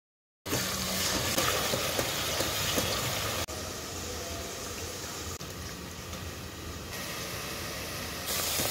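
Steady bubbling hiss of a pot of mutton trotters boiling in their stock, in several short cuts that step the level up and down. Silent for the first half second.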